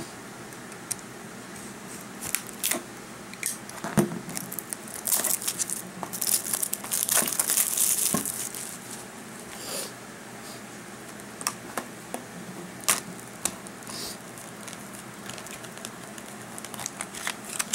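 Plastic shrink-wrap being torn and crinkled off a Blu-ray case: irregular crackling with sharp clicks, busiest in the middle.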